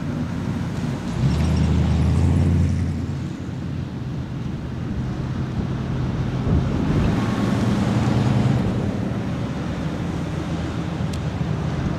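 Classic cars and hot-rod trucks driving slowly past one after another, a steady low engine sound under road noise. It swells as one passes about a second in and again around seven seconds.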